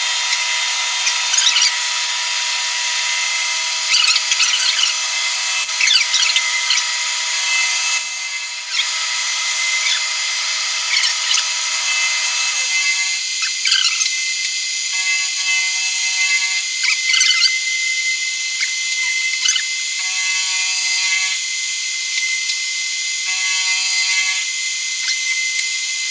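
A milling machine spindle turning an end mill at about 1300 RPM, cutting along the sides of an aluminium test piece. It makes a steady high whine with scratchy cutting noise, and the sound changes about halfway through.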